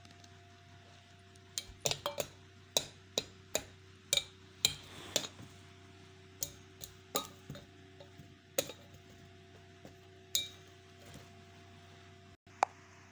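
Irregular sharp clicks and clinks, about twenty of them over roughly nine seconds with one more near the end, as a small child handles and knocks a small pink plastic object. A steady low hum runs underneath.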